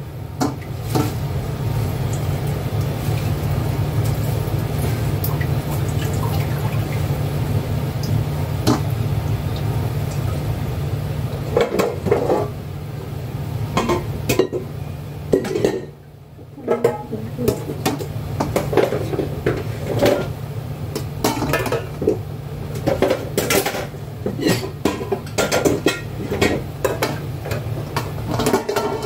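Kitchen clatter: pots, a colander and utensils knocking and clinking, with many short sharp clinks that come thicker in the second half. A steady low hum underlies the first dozen seconds and stops about twelve seconds in.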